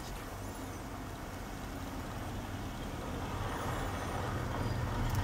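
A low, steady engine rumble that grows louder toward the end.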